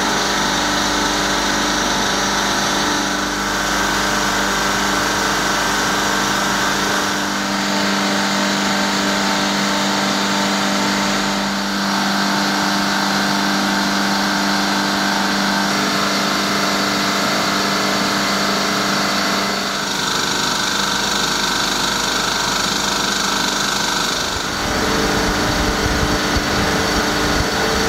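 Sabroe SMC 108L eight-cylinder reciprocating ammonia compressor running under load at 75% capacity, coupled to its 110 kW electric motor: a loud, steady mechanical running sound with a constant hum.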